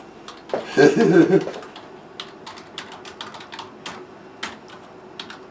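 Slow, uneven keystrokes on a computer keyboard: a few clicks a second with irregular gaps, typical of a slow typist. A brief voice sound, the loudest thing, comes about half a second in.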